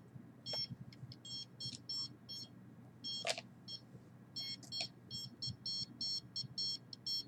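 Handheld radiation detector beeping in short, irregular chirps, several a second in uneven clusters, reacting to the signals it picks up. There is one sharp knock about three seconds in.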